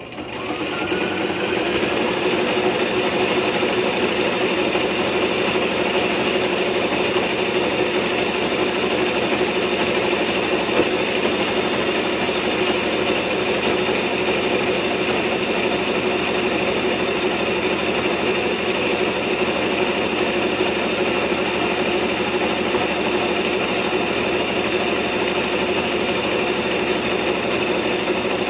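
Electric sewing machine running continuously, stitching along a folded fabric strap. It comes up to speed over the first second or two, then holds a steady running sound.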